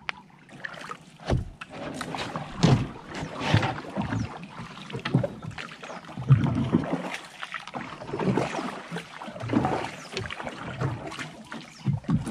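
Paddle strokes splashing and pulling through water as a small outrigger canoe is paddled, a stroke roughly every second, somewhat irregular.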